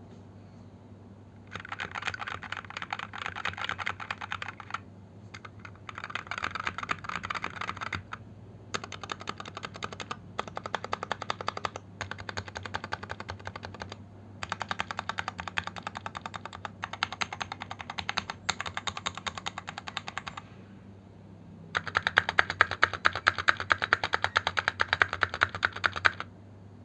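Vortex VX5 Pro 60% mechanical keyboard with an aluminium case, JWICK Ultimate Black Smoky switches and PBT double-shot keycaps, being typed on quickly in a series of bursts of rapid key clicks with short pauses between. The last and loudest run starts about four-fifths of the way in.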